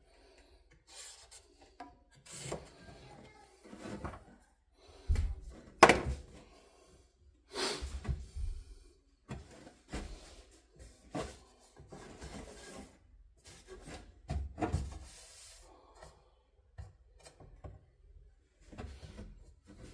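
Irregular knocks, clunks and scraping rubs of sheet-metal repair parts being handled and fitted, about a dozen separate sounds, the loudest about six seconds in.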